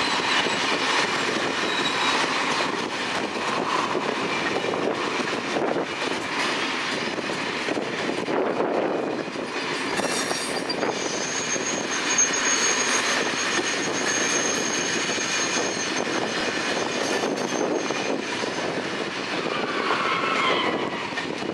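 Rebuilt Corail passenger coaches rolling slowly over the station tracks, wheels running on the rails. A high steady wheel squeal sounds for several seconds in the middle, and a falling squeal comes near the end.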